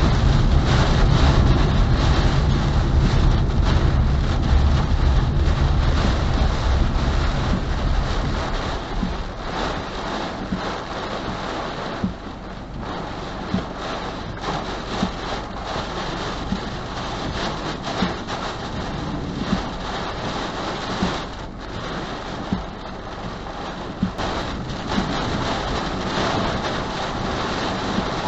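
Thunderstorm wind and heavy rain near a small tornado. Gusts buffet the microphone with a heavy rumble for the first several seconds, then ease to a steady rushing hiss of rain with scattered sharp ticks.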